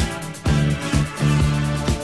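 Background music with a steady beat of about two strokes a second over a bass line.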